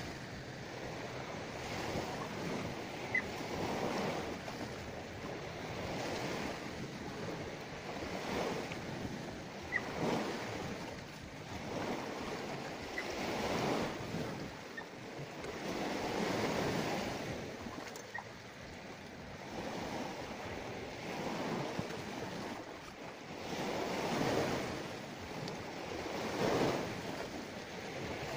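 Sea waves washing onto a rocky shore, swelling and falling back every two to three seconds, with some wind on the microphone. A few faint brief clicks.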